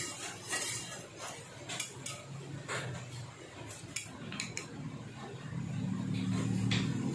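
Metal spatula scraping and clinking against a cast-iron martabak pan as the cooked martabak is lifted out: a handful of sharp clicks over a low hum.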